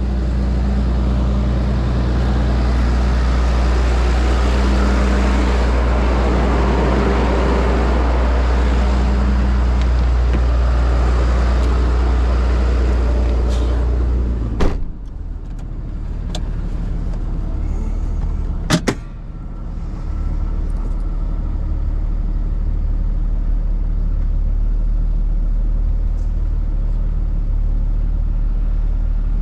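Tow truck engine running steadily under load with a rough rasping noise over it. About halfway through, a sharp clank comes and the sound drops. A second clank follows a few seconds later, and then the engine runs on steadily.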